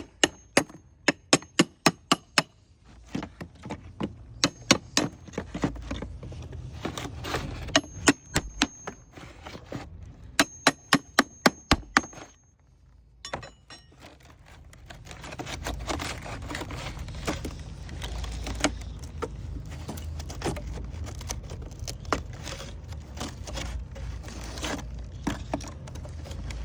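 Hammer tapping a flat crowbar in quick runs of sharp metallic strikes, about three to four a second, driving the bar under a wind-damaged wood shake to pry it out. In the second half, busier scraping and small clicks as the old shake is worked loose.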